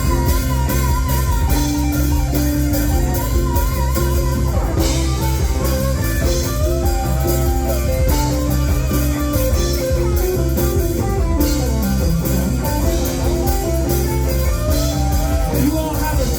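Live yacht rock band playing an instrumental passage with no singing: guitar over bass and a steady drum kit, with sustained lead notes that waver in pitch.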